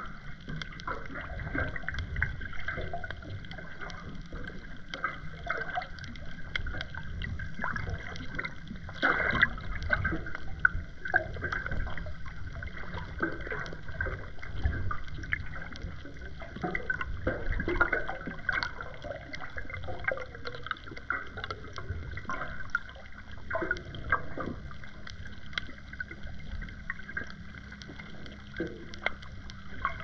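Underwater sound picked up by a submerged GoPro Hero 10: a muffled wash of moving water with many scattered clicks and crackles throughout.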